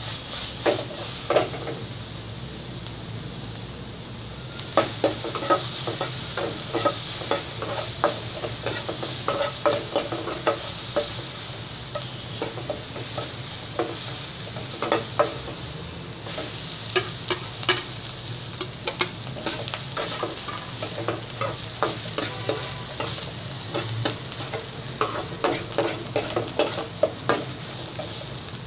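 Diced vegetables and rice frying with a steady sizzle in a metal wok, while a metal spatula scrapes and knocks against the pan in quick, repeated strokes. The stirring stops for a couple of seconds early on, leaving only the sizzle.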